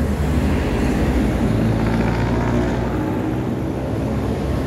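A motor vehicle's engine running with a steady low rumble.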